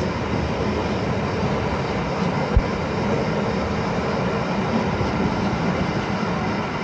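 Container flat wagons of a freight train rolling past, wheels running on the rails in a steady rolling rumble, with one sharp thump about two and a half seconds in.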